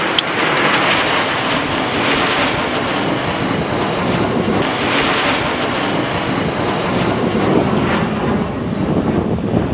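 Jet engines of a Boeing 737-800 airliner (CFM56-7B turbofans) and two escorting F-16 fighters flying overhead in formation: a loud, steady roar, with a faint high whine slowly falling in pitch over the first few seconds.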